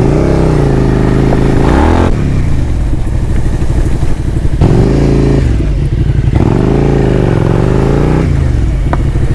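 Suzuki SV650's V-twin through a slip-on Yoshimura-style muffler, blipped up three times and dropping back to a steady idle in between. The note is full and fairly bassy.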